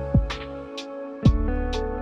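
Lo-fi background music with a steady drum beat over held chords.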